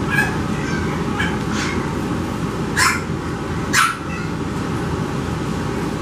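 Seven-week-old French Bulldog puppies giving short, high-pitched yips and barks: a few soft ones in the first two seconds, then two louder ones about three and four seconds in. A steady low background noise runs under them.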